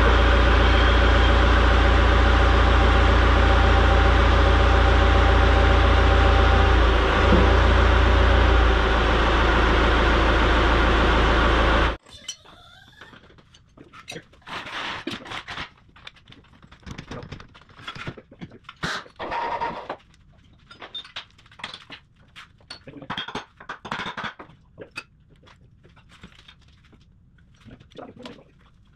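Excavator diesel engine running steadily during a test run of the rebuilt final drive, stopping abruptly about twelve seconds in. After that come scattered metallic clanks and rattles.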